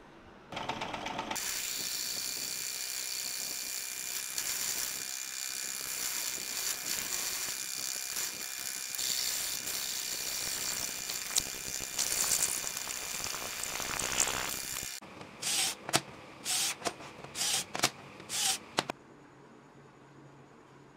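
Drill with a twist bit boring a hole through a square steel bar, running steadily with a bright hiss for about fourteen seconds. Near the end it gives way to a string of short separate bursts, each a second or less.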